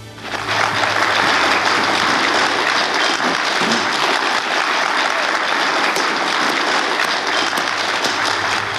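Audience applause: a dense crowd of many hands clapping. It swells up over the first second, holds steady, and dies down near the end.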